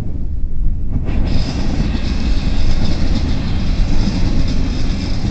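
Double-stack intermodal freight cars of a CN train rolling steadily past, a loud continuous rumble of wheels on rail. About a second in the sound turns brighter, with a steady high hiss and ring from the wheels joining the rumble.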